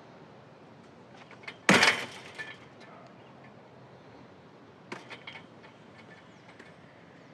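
A chained metal gate in a chain-link fence being shaken: one loud clank about two seconds in, trailing off in lighter rattles, and a second, weaker rattle of a few clicks about five seconds in.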